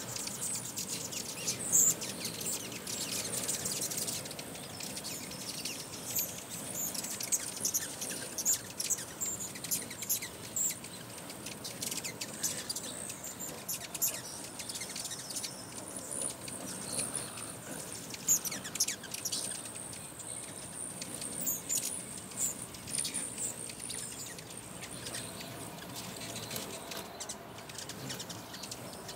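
A crowd of hummingbirds at a feeder, giving many quick, sharp high chips and chitters in irregular flurries over a steady thin high-pitched hum.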